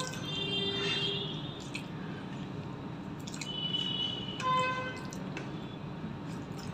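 Eating by hand from a steel plate: fingers squishing and mixing soft papaya curry and rice, small clicks of fingers against the metal, and chewing. A few held tones sound faintly in the background near the start and again around the middle.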